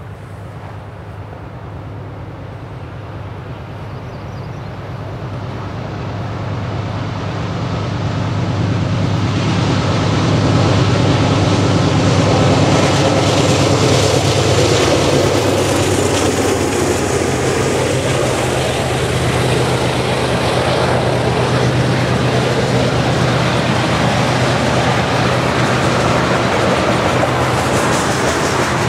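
Freight train led by two GE diesel-electric locomotives, a C44-9W and an ES44DC. Their engines grow louder as they approach and go by about halfway through. Tank cars follow with a steady rumble of steel wheels on the rails.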